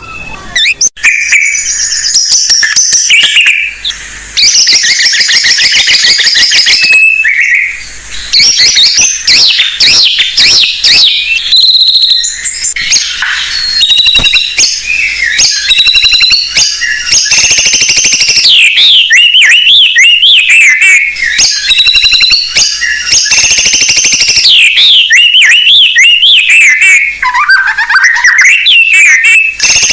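White-rumped shama (murai batu) singing loudly and almost without pause: a long run of varied whistled phrases and rapid trills, with one lower swooping phrase near the end.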